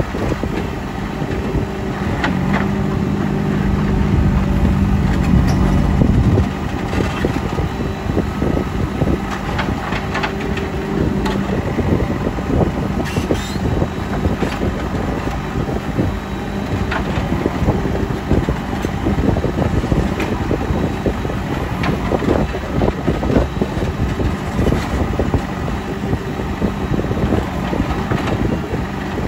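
JCB 3CX backhoe loader's diesel engine running under work, louder for a few seconds early on and dropping back about six seconds in. Frequent short knocks and clatter run throughout.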